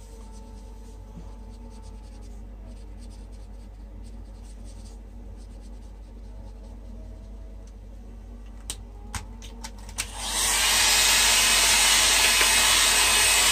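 Faint scratching of an alcohol ink marker on glossy photo paper, then a few clicks and a Conair hair dryer switched on about three-quarters of the way in, blowing steadily and loudly over the wet ink.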